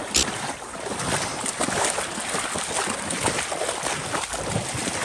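Someone in waders wading through shallow marsh water: a steady run of sloshing, splashing steps.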